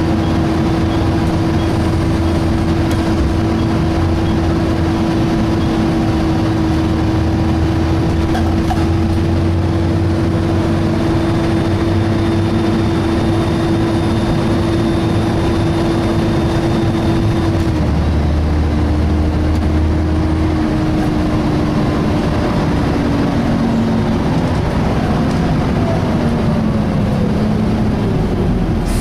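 On board a Volvo B7TL double-decker bus: the cooling fan whines at a steady pitch over the rumble of the diesel engine. About two-thirds of the way through, the whine drops and keeps gliding lower as it slows. A faint high squeal is heard for several seconds before the drop.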